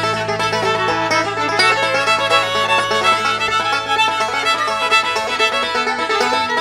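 Background music: an upbeat bluegrass-style tune with fiddle and banjo.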